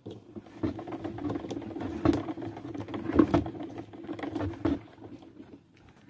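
Esmaltec washing machine's clutch actuator running, lifting the clutch plate that locks the basket for spin. It gives a steady hum with irregular clicking and rattling, and dies away a little before five seconds in.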